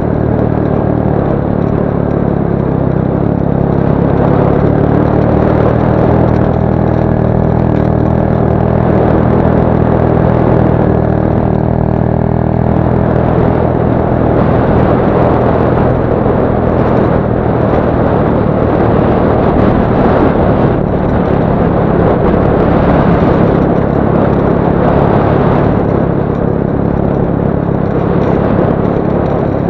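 Motorcycle engine running at a steady low speed over a rough gravel track. From about halfway, rough rattling noise from the bumpy surface grows over the engine's even tone.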